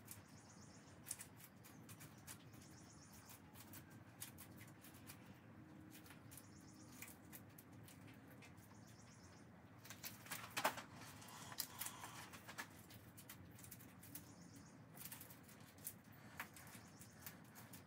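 Faint, irregular clicks and scrapes of a stick stirring thick compound in a plastic bucket, with a louder run of knocks about ten to twelve seconds in.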